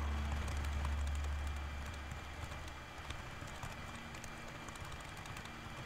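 Faint typing on a computer keyboard: light, irregular key clicks, over a low hum that fades out within the first couple of seconds.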